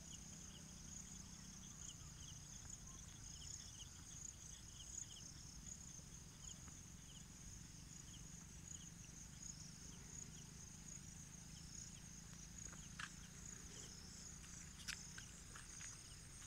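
Faint chorus of insects trilling in a steady, thin high buzz, with a fainter chirp repeating a few times a second through the first half. A few sharp clicks near the end.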